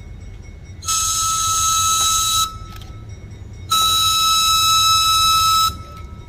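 Single-chime train air horn sounding two long, steady blasts, the opening longs of the grade-crossing signal as the train moves over the road crossing.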